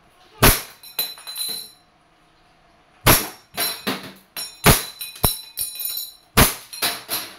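WE Hi-Capa T-Rex green-gas blowback airsoft pistol firing single semi-automatic shots, each a sharp pop with the slide cycling. Steel spinner target plates clank and ring as the BBs hit. The four loudest shots come about one and a half to two and a half seconds apart, with smaller knocks between them.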